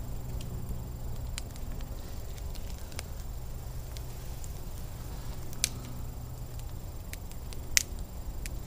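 Pine-wood campfire crackling, with scattered sharp pops over a low steady rumble; two pops stand out, about five and a half and nearly eight seconds in.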